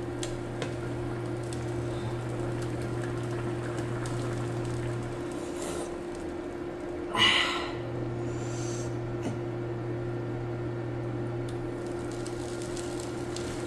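Steady low electrical hum that cuts out about five seconds in and comes back about two seconds later, under soft eating and utensil noises, with one brief louder mouth noise at about seven seconds.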